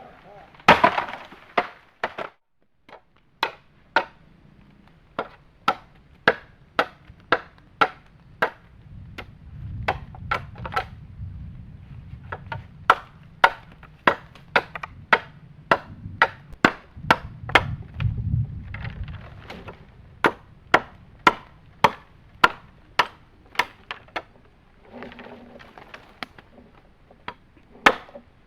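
Steady chopping of wood, sharp strikes about two a second, with a few short pauses.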